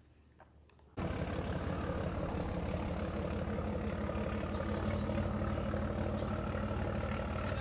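A heavy engine running steadily with a deep, even hum, cutting in abruptly about a second in after a moment of near quiet.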